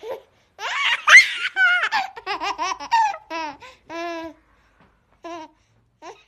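Baby laughing in high-pitched bursts: a loud squeal about a second in, then a quick run of short laughs, tailing off into a few shorter calls with pauses near the end.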